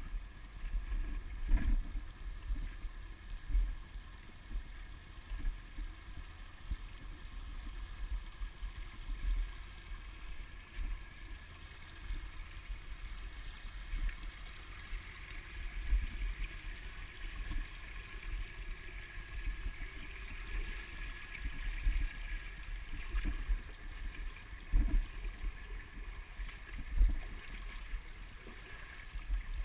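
Shallow creek trickling over rocks as a steady hiss, with irregular low thuds from walking footsteps close to the microphone.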